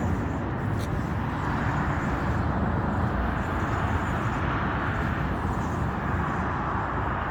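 Industrial food mixing machine running with a steady mechanical noise.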